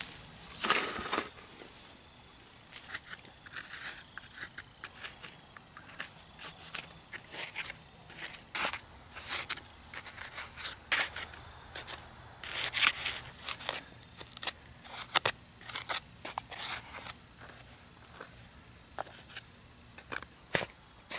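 A long run of irregular short scrapes, crunches and clicks, coming in uneven clusters with quieter gaps between.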